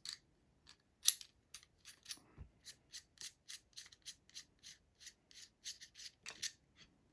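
Metal parts of a Canik Mete SFT Pro pistol scraping and rubbing as it is taken apart by hand: a few separate scrapes, then a steady run of short strokes, about four a second.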